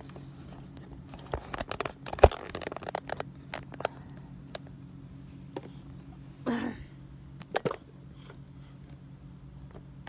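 Handling noise from a phone camera being picked up and repositioned: rustling, clicks and knocks, the loudest a sharp knock about two seconds in, with a short rustle and two more knocks later on. A steady low hum sits underneath.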